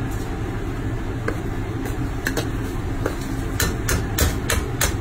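A spatula stirring salted anchovies frying in a pan, scraping and clinking against the pan, with a quick run of clinks in the second half. A steady low rumble runs underneath.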